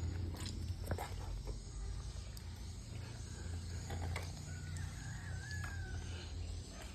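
Quiet background with a steady low hum and a few soft clicks. A faint distant chicken call comes about four and a half seconds in.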